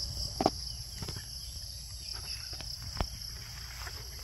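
Insect chorus, a steady high-pitched shrill from many insects, over a low rumble, with a few sharp clicks about half a second in and again near three seconds.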